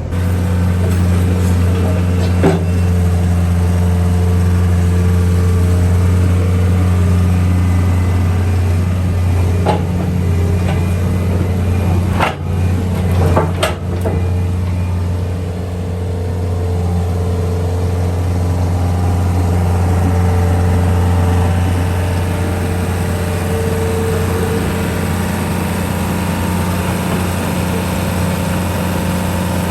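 John Deere skid steer's diesel engine running steadily under work. A few sharp knocks come through it, mostly in the first half.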